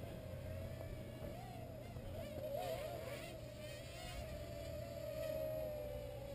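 Traxxas QR-1 quadcopter's small electric rotors whining in flight, a steady insect-like buzz whose pitch wavers up and down as the rotor speeds shift; about two and a half seconds in, the pitches of the rotors briefly split apart and wobble against each other.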